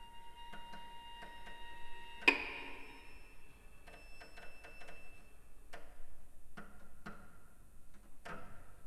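String quartet playing sparse, sharp, clicking string attacks that ring briefly in the hall, over a high held violin note; the loudest strike comes a little over two seconds in.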